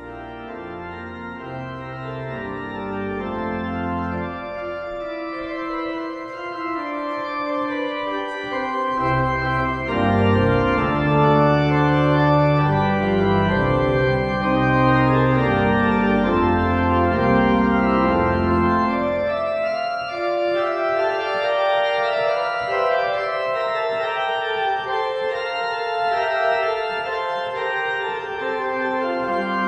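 The restored Beckerath pipe organ of St. Elisabeth playing sustained chords. Deep pedal bass notes join for about ten seconds in the middle, then the playing moves to lighter, higher chords.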